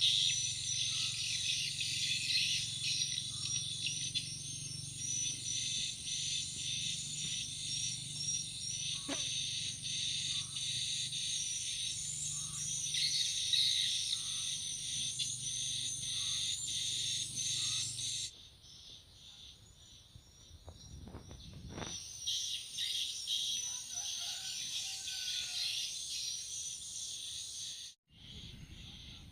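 Outdoor chorus of insects and birds chirping rapidly, over a steady high insect drone. It drops away abruptly about eighteen seconds in, leaving fainter chirps and a few rustles.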